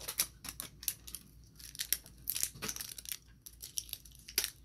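Crinkly plastic wrapping being peeled and torn by hand off a toy surprise ball: a run of irregular short crackles and rips.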